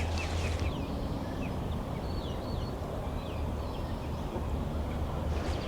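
Small birds calling faintly in a series of short, quick, sliding chirps, over a steady low rumble.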